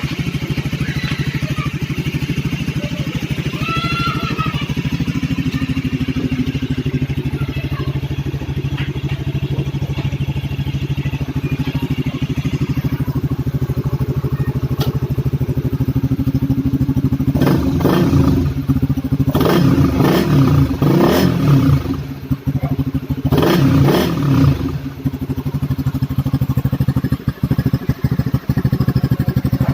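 Honda RS150 motorcycle's single-cylinder engine idling through an aftermarket R150 Carb 'Reborn' canister exhaust. In the second half it is revved in a run of quick throttle blips, then it settles back to a steady idle.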